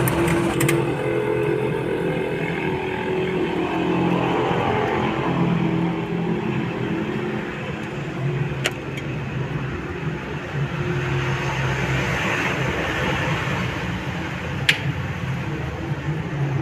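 A vehicle engine idling steadily, with two sharp clicks about six seconds apart.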